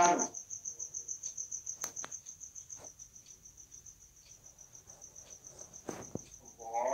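Cricket chirping steadily: a rapid, even train of high-pitched pulses. A few faint clicks come about two seconds in and near the end.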